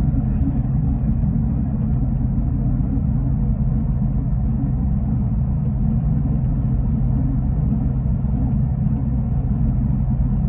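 Steady low rumble and drone of a bus cruising at highway speed, heard from inside the cabin: engine hum and tyre noise on the road, with no change through the stretch.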